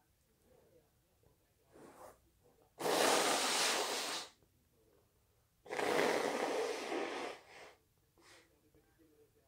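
A person sneezing twice, loud, breathy sneezes about three seconds apart, during a sneezing fit, with a faint intake of breath before the first.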